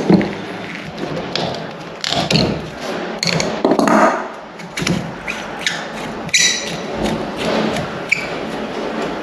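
Irregular metallic clicks, taps and scrapes from hands working a compression nut and olive on a radiator pipe, with a couple of short metal rings about six and eight seconds in.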